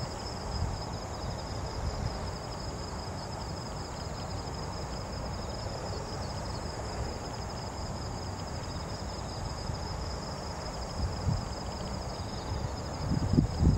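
Outdoor ambience: a steady, high-pitched pulsing insect chirr over low wind rumble on the microphone, with gusts swelling about a second before the end.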